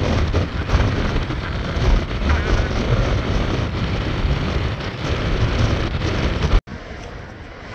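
Strong wind buffeting the microphone, a heavy low rumble that swells in gusts. About six and a half seconds in it drops suddenly to a softer rush of wind.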